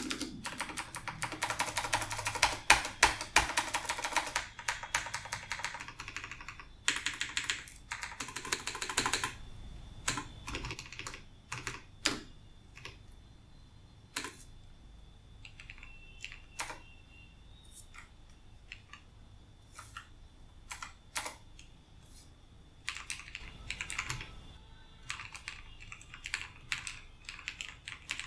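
Typing on a TVS Bharat Gold keyboard with clicky Long Hua Blue switches (Cherry MX Blue clones) lubed with coconut oil. A fast run of keystrokes gives way to single, scattered key presses, and fast typing picks up again near the end.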